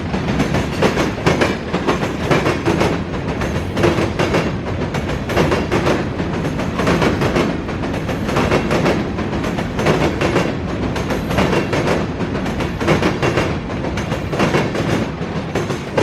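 CSX freight train's cars rolling past close by, the wheels clacking steadily over rail joints.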